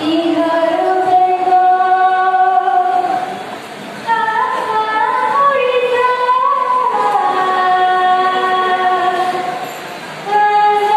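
A woman singing unaccompanied into a microphone over a PA, long held notes in phrases, with short breaths about three and a half seconds in and near the end.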